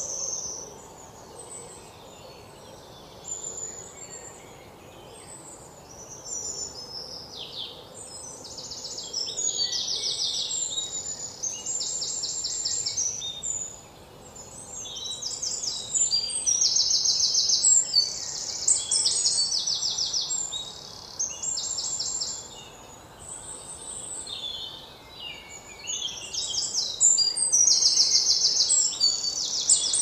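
Forest ambience of songbirds singing: high, rapid trilled phrases a second or two long, repeating at intervals over a faint steady background hiss.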